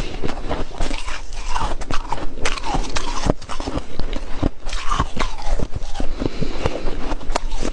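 Freezer frost being bitten and chewed: dense, irregular crunches and crackles.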